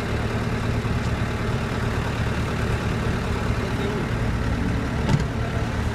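A motor vehicle's engine running steadily with a low hum. There is a short knock about five seconds in.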